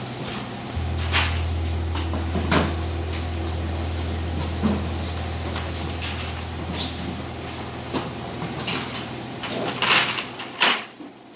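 Plastic crates knocking and clattering as they are stacked one on another on a hand truck, with the two loudest knocks near the end. A steady low hum runs under them and stops a couple of seconds before the end.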